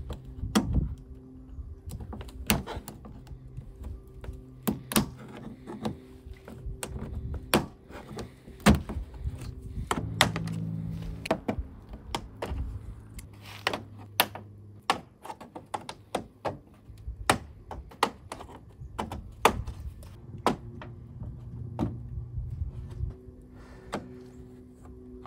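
Plastic push-pin clips being pried out of a truck's plastic radiator-top bezel with a plastic trim removal tool: a string of irregular sharp clicks and snaps as the clips pop loose.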